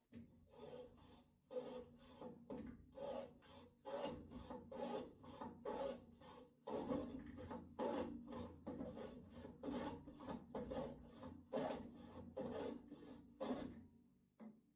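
Wood being rasped or sanded by hand, in quick, even back-and-forth strokes of about two to three a second, stopping just before the end. This is the shaping and smoothing of a wooden mallet made from scrap.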